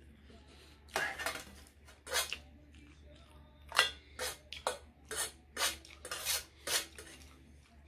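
A metal fork scraping and clinking on a metal serving tray as noodles are pushed together: a run of about a dozen short, sharp, irregular scrapes starting about a second in and stopping near the end.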